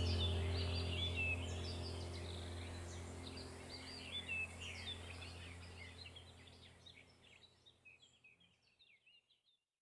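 Small birds chirping and twittering in quick overlapping calls over a steady low hum. The whole sound fades out gradually to silence near the end.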